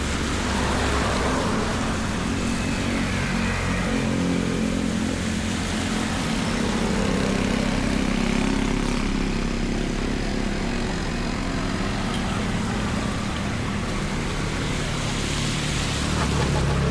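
A motor vehicle engine running steadily over a constant wash of water noise, as from traffic moving through a flooded road.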